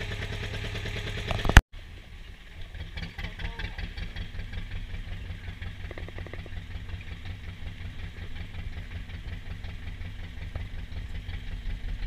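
A sharp click about a second and a half in, then the boat's engine running with a steady low pulse.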